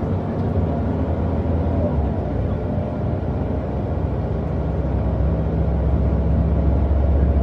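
Mercedes-Benz O405NÜ city bus's diesel engine idling with a steady low rumble.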